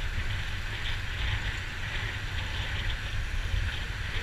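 Steady wind rumble on the microphone of a moving motorbike, over the road noise of the ride.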